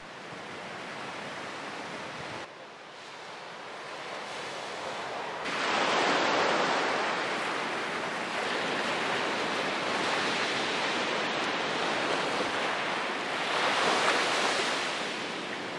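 Ocean surf washing on a beach: a steady rush of waves that swells louder about six seconds in and again near the end.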